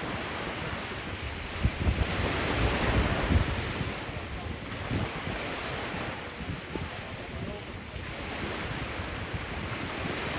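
Sea surf washing onto a beach, swelling about two seconds in and again near the end, with wind buffeting the microphone.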